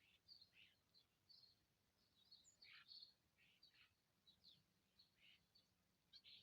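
Faint, scattered short chirps and call notes from several small birds, some sliding quickly downward in pitch, over a quiet background hiss.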